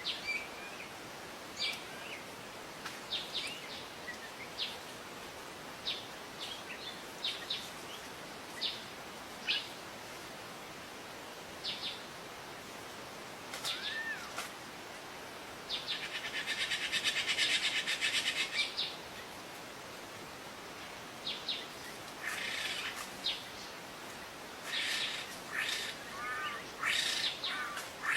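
Wild birds calling: scattered short, high chirps, with a long, rapid trill about halfway through and more clusters of chirps near the end, over a steady hiss.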